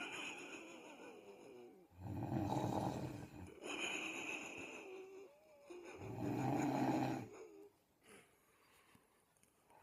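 Snoring: two long, rattling snores about four seconds apart, each followed by a breathy breath with a faint whistle in it.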